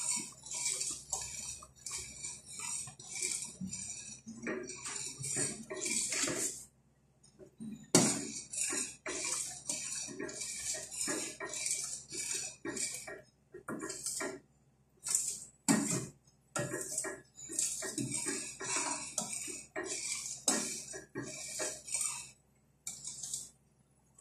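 A metal spoon scraping and knocking around the inside of a stainless steel pot, stirring a thick mixture of pinipig, milk and sugar on the stove. The strokes come in quick irregular runs, with a few short pauses.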